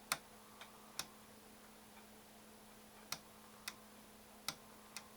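Sharp, irregularly spaced clicks, about seven in all, from the Drake TR-7 transceiver's front-panel controls being worked, over a faint steady hum.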